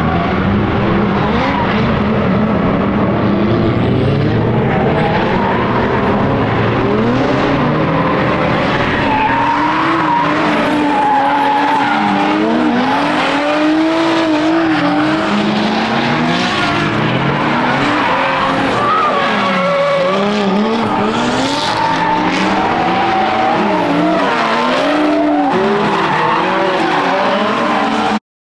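Drift car engines revved hard and repeatedly up and down as the cars slide sideways through a corner, over steady skidding tyre noise.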